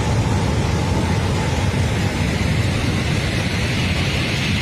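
Swollen mountain stream in flood, its torrent rushing steadily and loudly.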